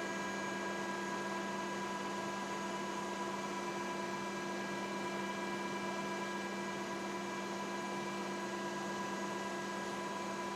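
Steady electrical hum with several fixed tones and an even hiss, unchanging throughout: background noise of the recording with no programme sound.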